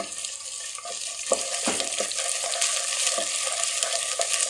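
Chopped onions and ginger paste sizzling in hot oil in a pot, stirred with a spoon that scrapes the pot a few times.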